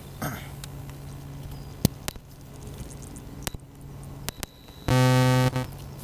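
One loud buzzy electronic beep from the quadcopter, about five seconds in and lasting well under a second. Scattered sharp clicks of handling and connectors come over a faint steady hum.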